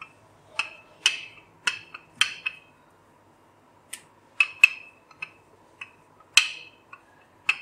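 Wooden rolling pin clacking against a hard board while dough is rolled out: a dozen or so sharp, irregular clicks with a brief ring, some coming in quick pairs.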